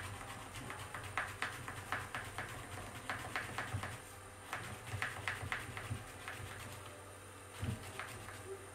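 Zucchini being sliced thin on a handheld mandoline: a quick run of short scraping strokes, about three a second, with a brief pause about halfway, then one soft low thump near the end.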